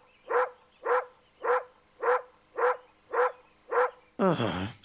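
A dog barking in a steady rhythm, seven short barks a little over half a second apart. A voice comes in near the end.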